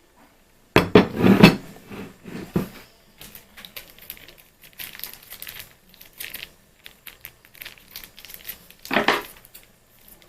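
Cookware clattering, loudest in a cluster of knocks about a second in, followed by many lighter clicks and the crinkling of plastic noodle packaging, with another louder clatter near the end.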